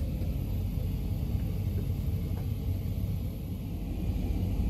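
Steady low rumble of the GoldenPass panoramic train running along the track, heard from inside the carriage.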